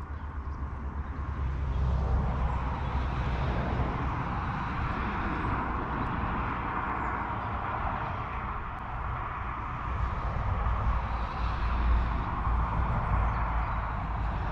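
Steady outdoor background noise: a low rumble that swells and eases, with a hiss above it.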